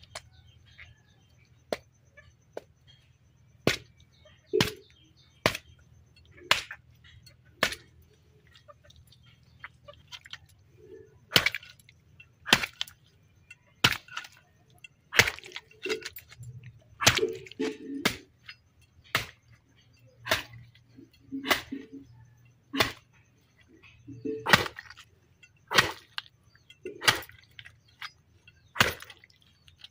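A heavy cleaver chopping into a pig's head on a wooden block: sharp blows through bone and flesh, some with a dull thud, roughly one a second at an uneven pace.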